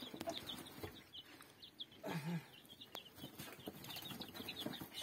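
Week-old chicks peeping: many short, high, falling peeps in quick succession, fairly faint, with a short lower sound about two seconds in.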